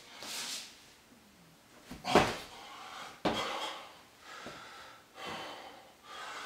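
A man breathing hard and panting during burpees, with thuds of his feet and hands on a wooden floor; the loudest thud comes about two seconds in and another sharp one a second later.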